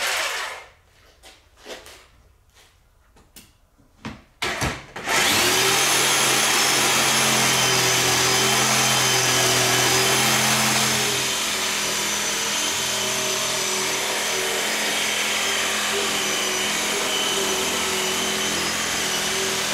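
Jigsaw cutting along the seam of a thin folded aluminum boat transom cap: a few light knocks and handling clicks, then about five seconds in the saw starts and runs steadily through the metal, easing slightly partway through.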